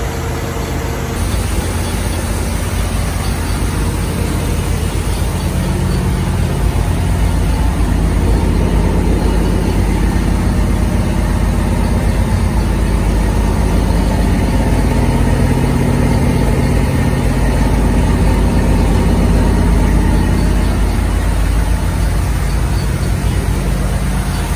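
1973 Corvette's carbureted V8 running steadily on its first start after sitting for about three years.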